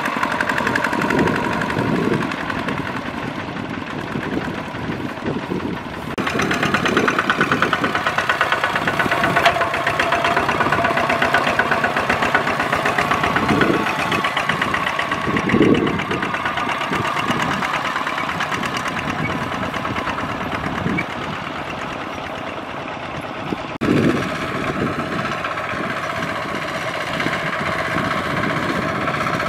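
Two-wheel walking tractor's single-cylinder diesel engine running steadily with a fast, even firing beat while pulling a trailer loaded with rice sacks. The sound shifts abruptly about six seconds in and again near the end.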